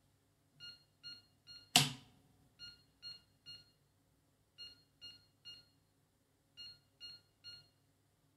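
Motherboard piezo buzzer on an AMI BIOS 286 board sounding its beep code: four sets of three short, identical beeps, about two seconds apart. Three beeps is the AMI code for a base 64K memory failure, matching the board halting at POST code 10. A single sharp knock about two seconds in is the loudest sound.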